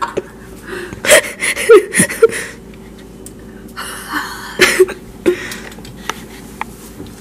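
A woman's breathy laughter and gasps in short bursts, with pauses between.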